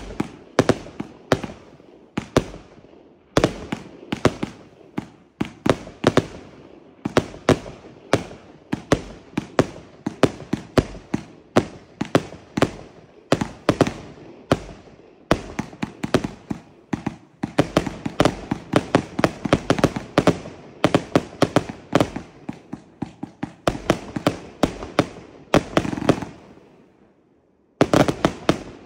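A consumer fireworks compound cake firing shot after shot in rapid succession, each a sharp bang, several a second and densest in the second half. The shots die away near the end, then one brief last flurry follows.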